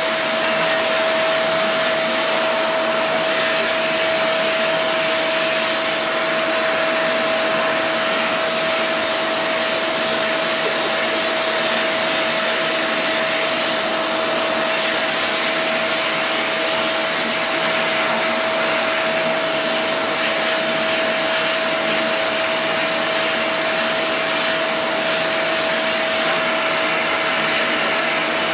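Vacuum cleaner running steadily: a constant rushing air noise with a steady whine, unchanging throughout.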